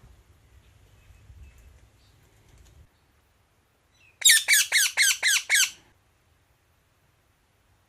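Indian ringneck parakeet giving a quick burst of about seven harsh squawks, each one dropping in pitch, a little after four seconds in.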